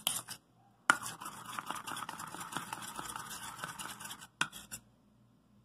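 A metal spoon stirs and scrapes around a ceramic bowl, mixing thick honey and mustard. It starts with a sharp clink about a second in, runs as a steady rapid scraping for about three seconds, and ends with another clink.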